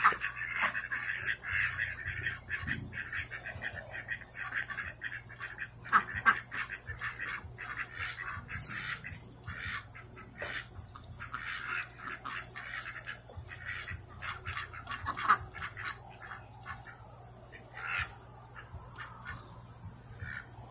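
A flock of domestic ducks quacking and chattering in short, irregular calls, with a few louder quacks standing out.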